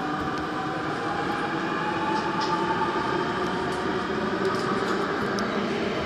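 Daejeon Metro Line 1 subway train running through a tunnel: a steady noise of wheels on rail with a faint steady hum of several tones, a few faint high ticks, and loudness rising slightly.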